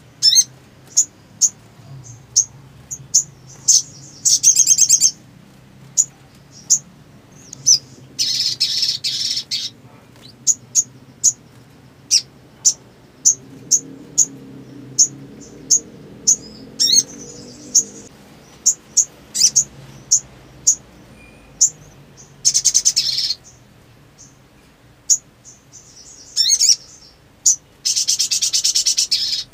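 Little spiderhunter (sogon) calling: a steady run of sharp, high chips about two a second, broken several times by loud rapid trills lasting a second or two.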